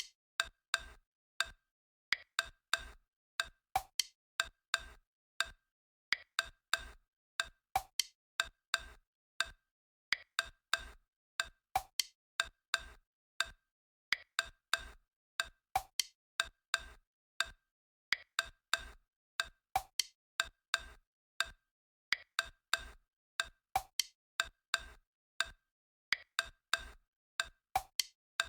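Programmed percussion loop of short, woodblock-like clicks with a low thump under some of them, in a strict rhythm that repeats its pattern about every two seconds, with dead silence between the hits.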